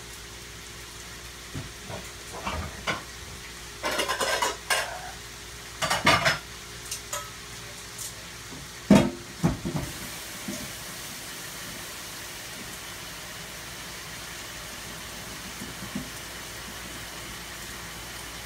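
Pots and pans clanking and rattling as a cooking pot is handled, with one sharp clang about nine seconds in, over a steady sizzle of diced chicken browning in a skillet.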